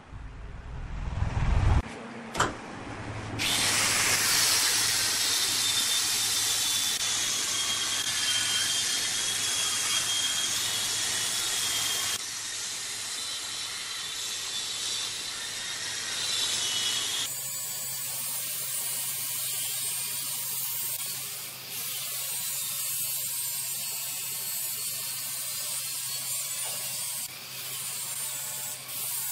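Large wood lathe running while a turning tool cuts into spinning red incense wood: a steady hissing scrape with a thin whistle over a low motor hum. A low rumble and a sharp click come in the first few seconds, and the sound changes abruptly about seventeen seconds in.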